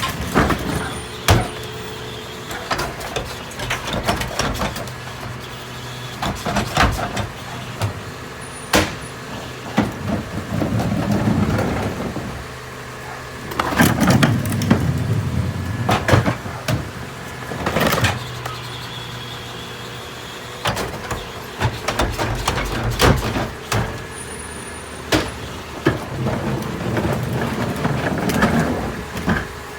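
New Way mini rear-loader garbage truck running its packer on trash: a steady engine and hydraulic hum with many sharp bangs and knocks, and several surges of louder crunching as the load is compacted.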